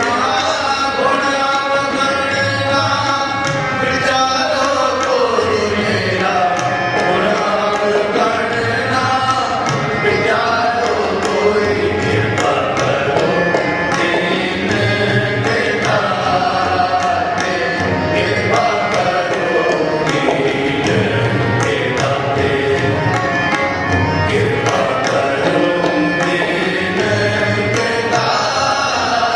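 Sikh shabad kirtan: male voices sing a devotional hymn to two harmoniums, with the tabla keeping a steady rhythm.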